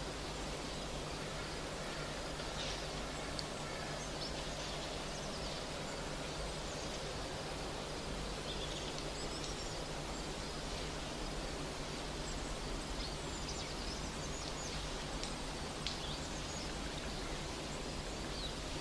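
Steady outdoor background noise with a low hum underneath. Faint, short high-pitched chirps come here and there, more of them in the second half.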